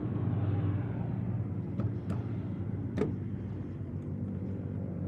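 Steady low hum of a running motor vehicle engine, with a few sharp clicks about two and three seconds in.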